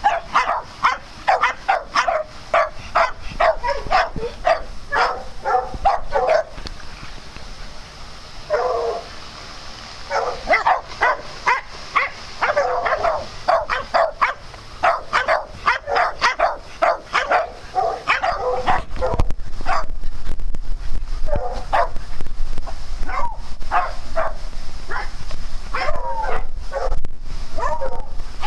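Dogs barking in play: long runs of rapid, high-pitched barks, with a lull about seven seconds in and fewer barks in the last third.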